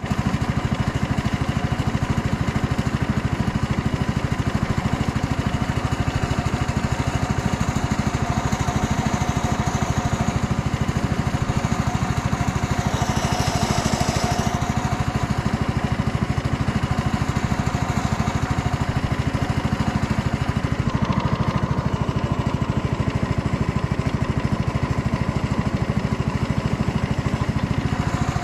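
Small boat motor running steadily at constant speed, heard from aboard a narrow wooden boat moving along a river.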